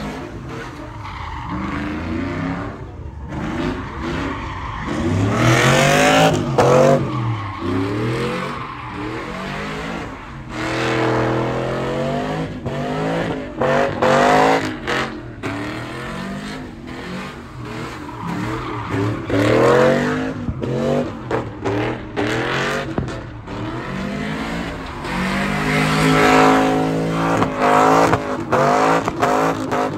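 Pickup truck doing a burnout and donuts: its engine revs hard in repeated surges, pitch rising and falling several times, while the spinning rear tires squeal and hiss on the pavement.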